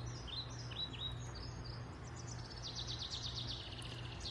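Songbird chirping: a few short downward chirps, then a rapid trill about two and a half seconds in. A steady low hum lies underneath.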